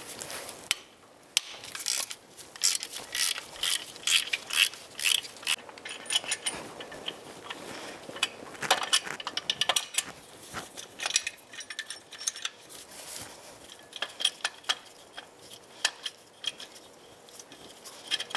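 Socket ratchet clicking in quick runs of strokes as the alternator bracket bolts are backed out, with light metallic clinks of loose bolts and tools between the runs.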